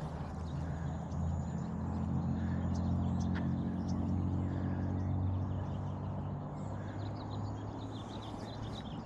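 Lawn mower engine droning steadily, growing louder over the first few seconds and then fading, with small birds chirping.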